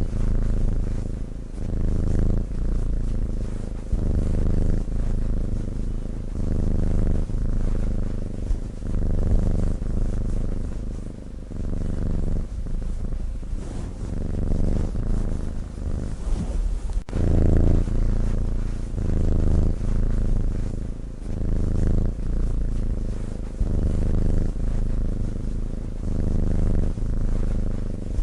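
A sleeping cat snoring, a low sound that swells and eases with each breath, about one breath every second and a half.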